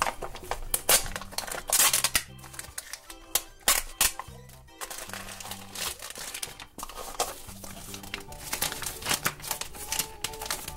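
Foil blind-bag packet and its wrapping crinkling and tearing in quick irregular crackles as it is opened and unwrapped, over background music with a steady low bass line.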